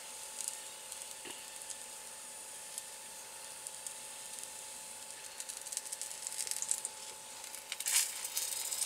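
Irish bangers (pork sausages) sizzling in a frying pan: a steady crackling hiss that grows louder and busier in the last few seconds, with a few sharp clicks.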